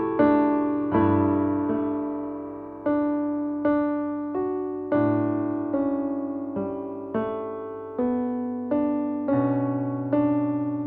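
Background music: slow solo piano, single notes and chords struck one after another, each left to ring and fade before the next.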